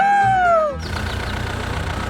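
A falling whistle-like sound effect dies away about three quarters of a second in. Then a mini tractor's engine idles steadily with a low, rapid chug.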